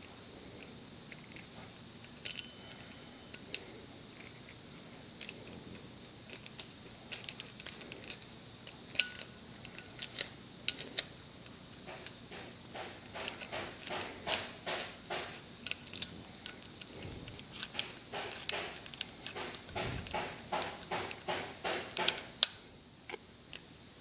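Small metal hardware clicking and clinking as the bolt and keeper are fitted onto a new idler pulley. Scattered clicks at first, then a steady run of ticks, two or three a second, through the second half, with a couple of louder clinks near the end.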